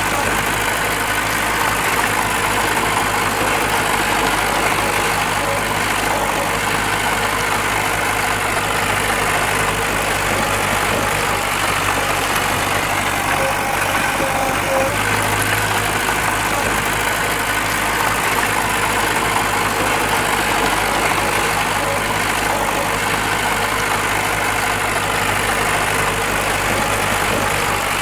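Diesel engine of heavy earthmoving machinery running steadily, its hum unchanging throughout.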